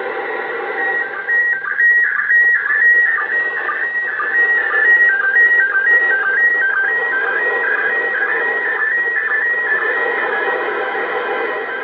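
Slow-scan TV picture signal from the International Space Station, heard over a 2-metre FM receiver on 145.800 MHz. It is a warbling high-pitched tone that steps in a regular beat about twice a second, under a steady hiss of static. The signal is weak, so the picture comes through hazy.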